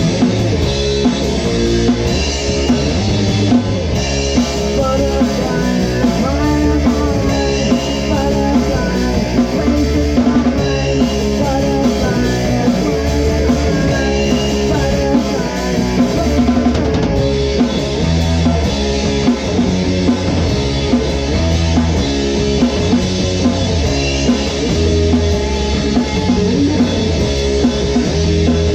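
Rock song with a full drum kit keeping a steady beat under the band.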